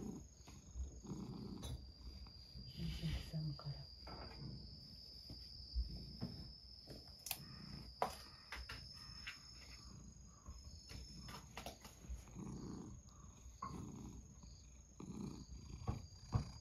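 Domestic cat purring, with a few short low vocal sounds and scattered light clicks and taps.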